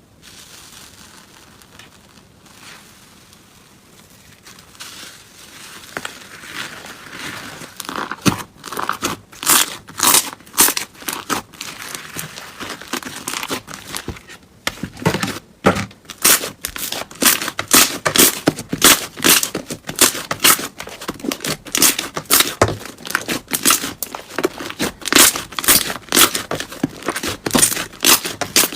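Slime being pressed and pulled by hand, making a fast run of short crackling pops, several a second. It is quiet at first and gets louder from about eight seconds in.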